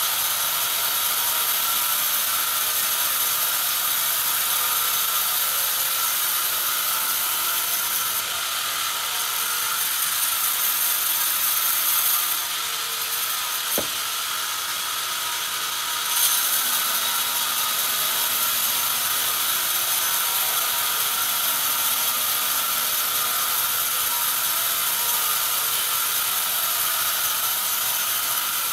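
Large band saw mill running, its blade cutting lengthwise through a log with a steady high hiss and mechanical clatter; a single sharp click about halfway through.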